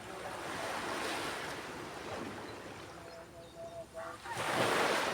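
Ocean waves breaking on a beach, the surf hiss swelling about a second in and again, loudest, near the end. Short repeated bird chirps are heard in the lull between.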